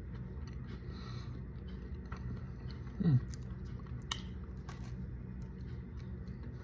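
A person chewing a crunchy sandwich cookie, with scattered small crunching clicks and a brief falling hum about three seconds in.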